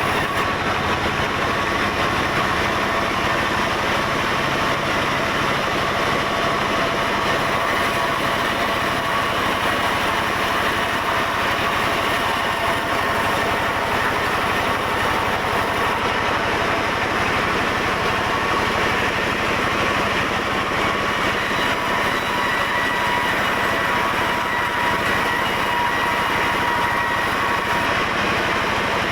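Sawmill saw machinery running steadily: a continuous mechanical drone with a thin high whine that strengthens somewhat in the second half.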